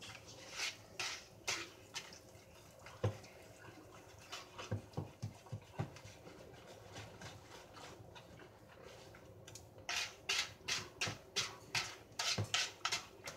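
Wire whisk stirring thick brownie batter in a bowl: repeated swishing strokes, about three a second and busiest near the end, with a few low knocks of the whisk against the bowl a few seconds in.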